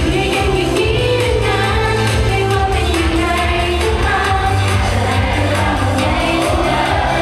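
Pop song with singing and a steady beat, played loud.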